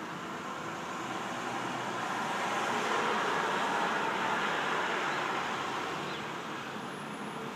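A car driving past on the street, its noise swelling to a peak about three to four seconds in and then fading away.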